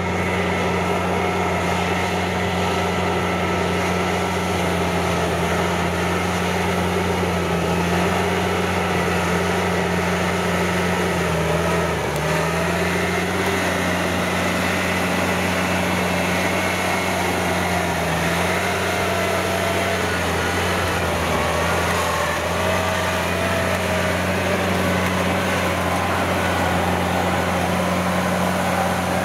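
Turbocharged Kubota V2403 four-cylinder diesel of a Kubota DC70 combine harvester, converted to pull a rotary tiller, running steadily under load while tilling a flooded rice field. Its note dips briefly about twelve seconds in.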